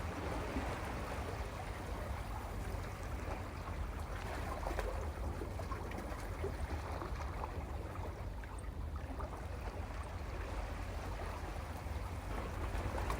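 Sea water washing and swirling over rocks on a rocky shore, a steady wash with no distinct breaking wave, with low wind rumble on the microphone.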